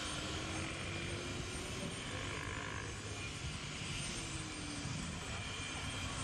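Steady jet-engine noise from an Air Canada Airbus A330 taxiing at low power, a constant hiss and rumble with a faint high whine.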